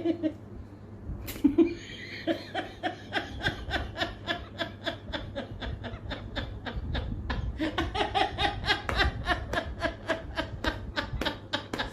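A person laughing continuously in rapid, even pulses of about five a second, growing stronger in the second half: laughter that began as forced and turned genuine. A sharp click sounds just before the laughing starts.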